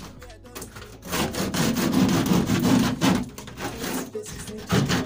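Hand saw cutting through a plaster of Paris ceiling in quick back-and-forth strokes, cutting back the broken section so it can be patched. The sawing starts about a second in, pauses briefly, and starts again near the end.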